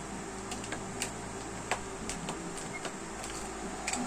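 Scattered small clicks and taps of a handheld action camera being handled and its buttons pressed, over a steady low hum.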